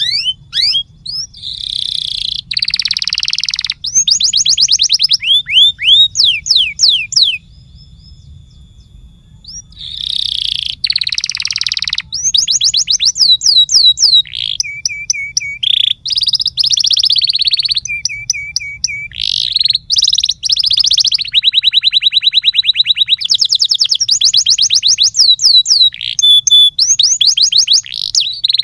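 Domestic canary singing a long, loud song of rapid trills and rolls, with sweeping whistled glides and some held steady notes. It pauses for about two seconds near the one-third mark, then resumes.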